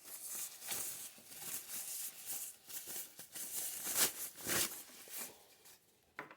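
Packaging rustling and crinkling as a clock radio is pulled out of its box, in uneven swells that are loudest about four seconds in and die away near the end.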